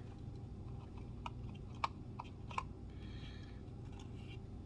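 Trading cards and their cardboard box being handled as stuck cards are worked loose: a few sharp clicks and taps, the loudest just under two seconds in, with faint rustling over a low steady hum.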